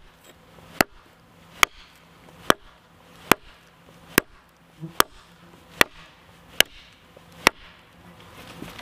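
Hatchet chopping a freshly cut green hazel limb laid on a tree-stump chopping block: about ten sharp, evenly spaced strikes, a little more than one a second.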